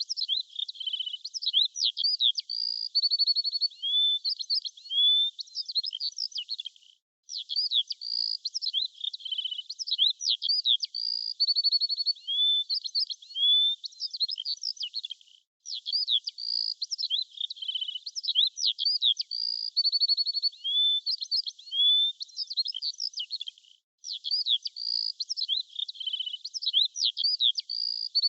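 Songbirds chirping and trilling: quick high-pitched chirps, short rising and falling notes and rapid trills. The same stretch of about eight seconds repeats as a loop, with a brief silent gap between repeats.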